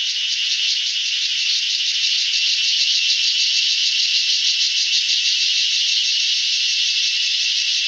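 Forest insect chorus: a steady, high-pitched, fast-pulsing rattling buzz.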